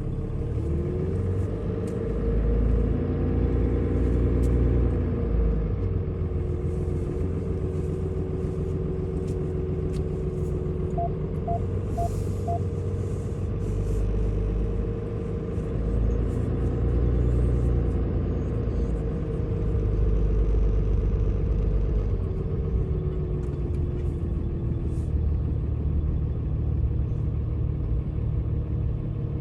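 A tow vehicle pulling a fifth-wheel trailer drives slowly, with a heavy low rumble. Its engine note rises and falls several times. A run of four short beeps comes about eleven seconds in.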